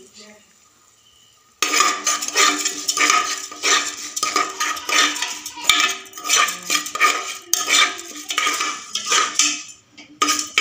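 A metal spoon stirring and scraping raw rice around the bottom of an aluminium pressure cooker, in quick repeated strokes with the metal ringing. It starts about a second and a half in.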